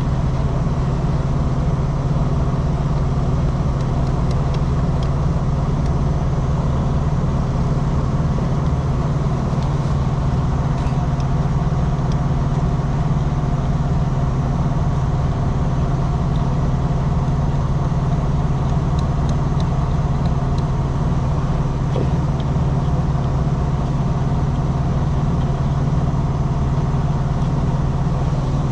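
A heavy diesel engine idling, a steady low drone, with a few faint clicks of hand-tool work on a truck hub.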